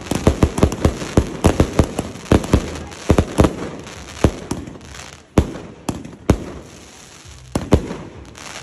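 Clobbering Time firework cake firing: a rapid string of sharp launch thumps and bangs from the shells breaking overhead, several a second for the first few seconds, then thinning to about one bang a second.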